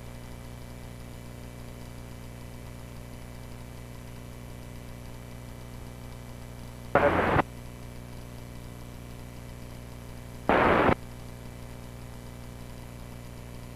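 Steady low hum in the aircraft's radio and intercom audio, broken twice by a short burst of radio static, about seven and ten and a half seconds in, as when a transmitter is keyed briefly with no voice.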